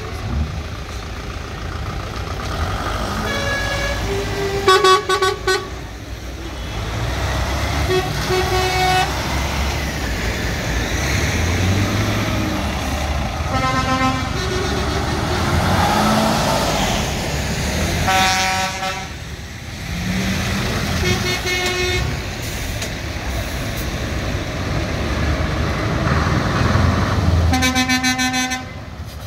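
Heavy lorries' diesel engines running as they pull away one after another, with their horns tooted about seven times. The loudest blast comes about five seconds in and a longer one near the end.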